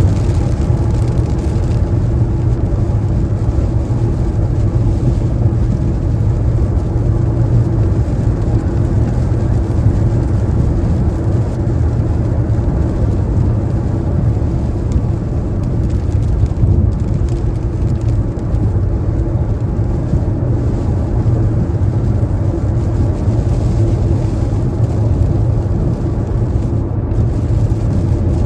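Steady low rumble of a car driving at highway speed on wet pavement: tyre and road noise with the engine under it, unchanging throughout.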